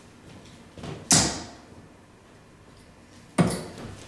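Two steel-tip darts thudding into a Winmau Blade 6 bristle dartboard, one sharp hit about a second in and another a little over two seconds later.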